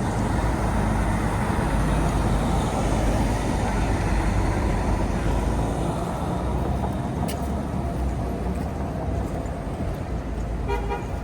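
City road traffic passing: a steady low rumble of engines with tyre noise. A short run of quick beeps sounds near the end.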